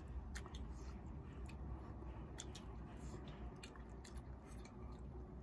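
Faint eating sounds: scattered small clicks and smacks of chewing noodles and forks on plates, over a low steady hum.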